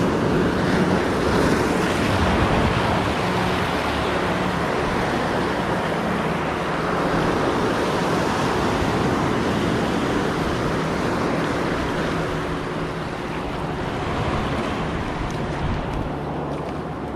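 Sea surf breaking and washing over a rocky shore, with wind buffeting the microphone.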